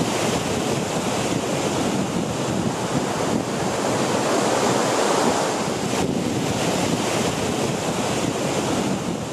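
Rocky mountain river rushing over stones in whitewater rapids: a steady, even noise of running water.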